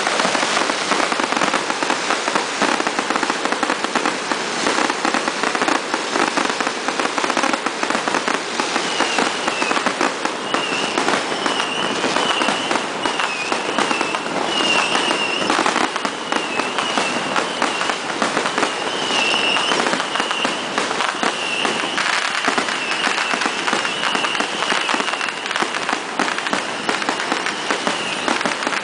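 Loud, dense fireworks and firecrackers going off without pause: a rapid, continuous crackle of bangs and pops. From about nine seconds in, a wavering high tone sounds over the crackling.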